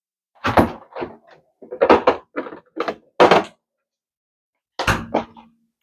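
A run of short, sharp clunks and knocks, then a pause and two more near the end: kitchen items being handled as a tub of vegan butter is fetched.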